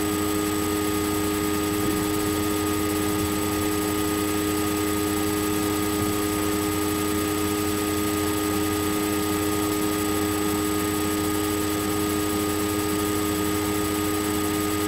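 Steady background hum and hiss with several constant tones, unchanging throughout: room tone with no distinct event.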